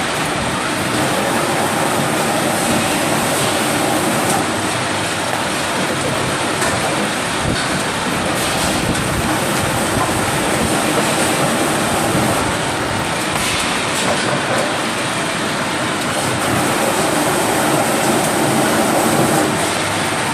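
Rotary veneer peeling lathe running steadily: a loud, continuous mechanical noise with a rattling clatter.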